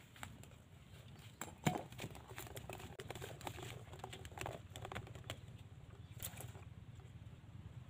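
Scattered light knocks and rustles, with one sharper knock about a second and a half in, over a low steady rumble.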